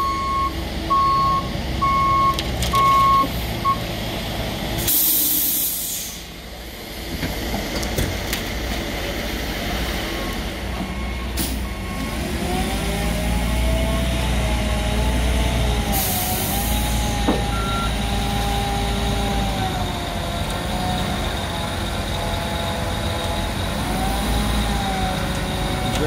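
Ready-mix concrete mixer truck's diesel engine running, its reversing alarm beeping about five times in the first few seconds. There are two short air hisses, one about five seconds in and one about sixteen seconds in. From about twelve seconds on, a wavering whine rises and falls over the engine.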